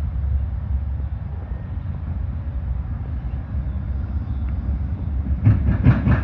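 Low, steady rumble of an approaching Amtrak passenger train. Near the end, a rapid, evenly spaced run of clacks begins.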